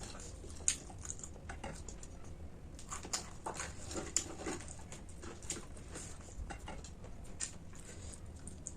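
Someone eating close to the microphone: irregular small crunches and mouth clicks of chewing snack food.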